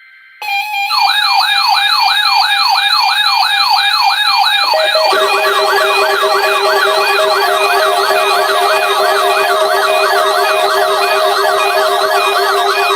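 Electronic siren sounding a rapid yelp, a rising sweep repeated about three and a half times a second. About five seconds in, a second, faster yelping siren with a steady lower tone joins it, and both carry on together.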